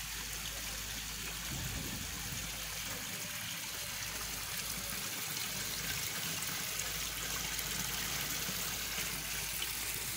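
Water wall fountain: three spouts pouring steadily into a tiled basin, with water spilling over a scupper into a lower pool, giving a constant splashing and trickling.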